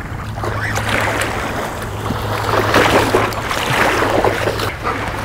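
Shallow water splashing as a hooked catfish thrashes at the shoreline while being reeled in, over small waves washing on a sandy beach. The splashing grows louder from about halfway through, with a steady low hum underneath.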